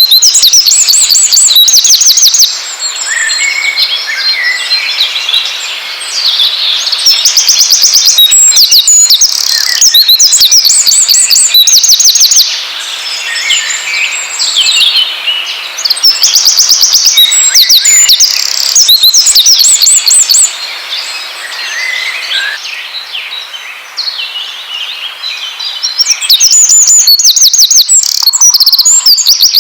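Songbirds singing: loud, rapid trills of repeated high chirps alternating every few seconds with quieter, varied twittering. It is a lure recording played to prompt caged songbirds to start singing.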